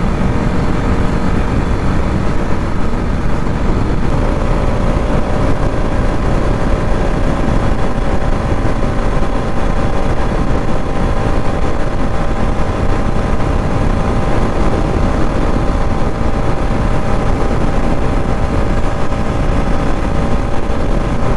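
Motorcycle cruising steadily on a highway: an even engine drone under a heavy rush of wind noise. The engine note shifts slightly about four seconds in.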